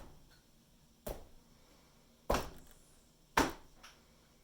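Plastic mallet smacking wet acrylic paint on a canvas, three sharp slaps about a second apart.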